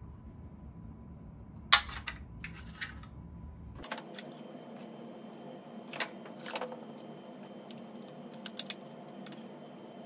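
Old plastic smoke detector heads and bases clicking and clacking as they are handled, set down and stacked on a table. A sharp click a couple of seconds in is the loudest, and a quick run of three clicks comes near the end.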